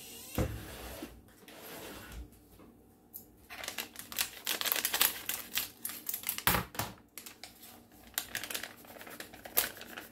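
A paper Bisquick mix pouch crinkling and rustling as it is handled, opened and emptied into a glass bowl: a quiet start, then a rapid, irregular run of crackles from about three and a half seconds in, with a thump about two-thirds of the way through.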